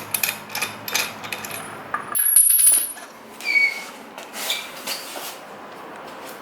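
Light metallic clinks and jingles: a run of short sharp clicks, some ringing high. The loudest ring comes about two and a half seconds in, just after a sudden cut in the background hum.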